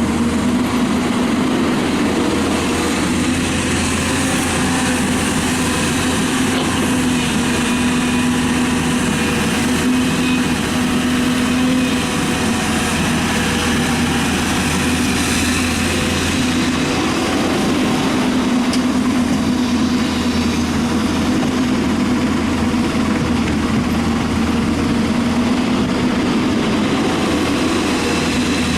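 Hyundai 220LC-9S excavator's diesel engine running at a steady speed, an even, unchanging drone with a steady hum.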